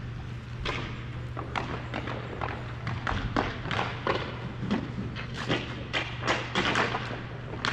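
A run of irregular thumps and knocks from play in a game, several a second and growing busier about halfway through, over a steady low hum.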